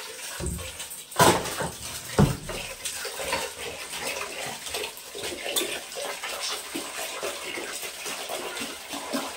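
Kitchen tap running into a steel bowl of chopped fenugreek leaves, with hands swishing and splashing the leaves in the water as they are washed. Two loud knocks come about a second in and again a second later.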